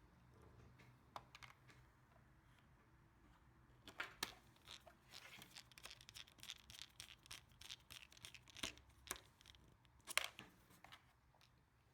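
Faint scattered clicks and scratchy scraping from small tools and plastic parts being handled on a laptop's screen bezel. They are busiest from about four seconds in, with a sharper click near the end.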